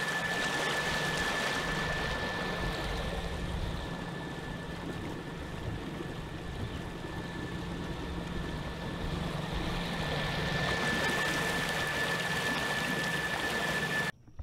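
Water rushing and churning in the wake of a small boat under way on its two transom-mounted electric trolling motors, with a steady high-pitched whine and a low hum over the wash. It cuts off abruptly near the end.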